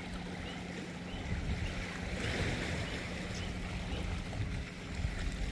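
Shallow sea water washing against a rocky shoreline, with wind buffeting the microphone and a faint steady low hum underneath.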